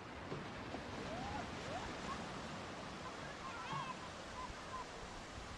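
Low sea waves breaking and washing up a flat sandy shore: a steady rush of surf, with faint distant voices over it.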